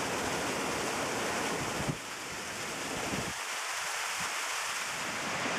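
Steady rush of water at a river dam, with wind buffeting the microphone that dies away about two and three seconds in.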